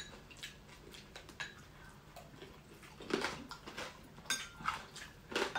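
Spoons and a fork clinking lightly against bowls and plates while two people eat, as scattered soft clicks a second or so apart.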